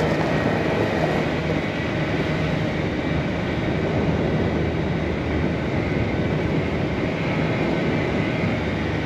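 A TYM 574 tractor's diesel engine running steadily while the tractor is driven along, heard from its open, windshield-less seat.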